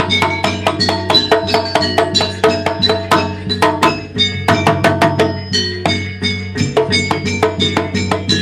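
A jaranan gamelan ensemble playing a gending, with quick, steady strikes on ringing metal-keyed percussion, several notes a second, over a steady low hum.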